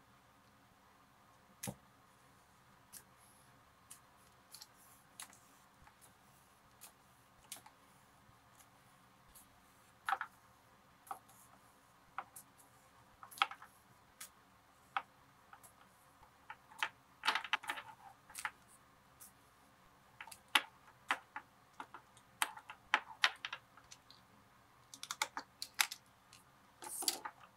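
Irregular small clicks, taps and thread rustles from hand-stitching a leather leash with waxed thread: the thread pulled through the leather and the metal snap hook knocked as it is handled. The clicks come more often in the second half, with a quick run of them near the end as the thread snips are picked up.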